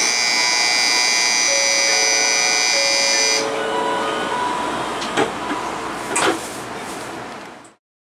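Shinkansen platform departure buzzer ringing loudly and steadily, cutting off about three and a half seconds in, with a two-note electronic chime alternating as the train's sliding door closes. Two sharp knocks follow about five and six seconds in as the door shuts, then the sound fades out.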